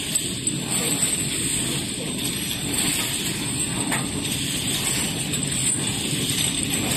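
Ampoule filling-and-sealing machine running: a steady mechanical din mixed with the hiss of its row of sealing-burner flames.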